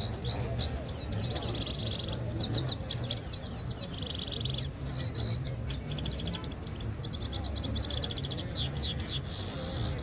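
Goldfinch singing: a continuous quick twittering of chirps and short notes, broken by two rapid buzzy trills, over a steady low rumble.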